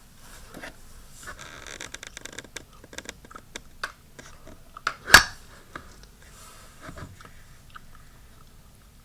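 Handling noise from a small folding knife: light clicks and scraping, with one loud sharp click about five seconds in.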